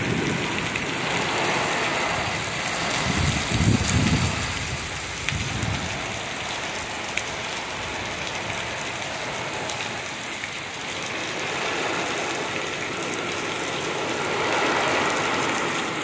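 Torrential, wind-driven rain pouring down steadily as a dense hiss, with a low rumble about three to five seconds in.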